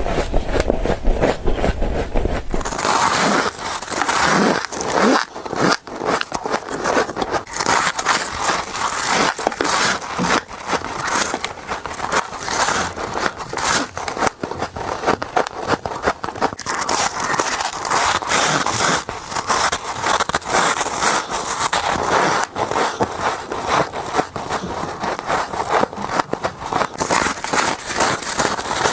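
Rapid bites into packed frost, a dense run of crisp crackling crunches in quick succession. A low hum is under the first couple of seconds and then cuts off.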